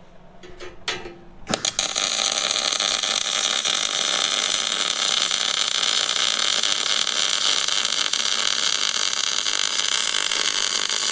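MIG welding arc on steel plate: after a few light knocks, the arc strikes about a second and a half in and runs steadily for about ten seconds, one long tack weld, then cuts off sharply.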